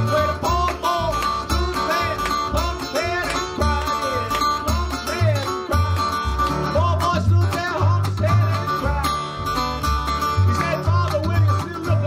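Instrumental country-blues break: a harmonica playing bent, gliding notes over a metal-bodied resonator guitar in open D tuning, with a washtub bass plucking low notes underneath.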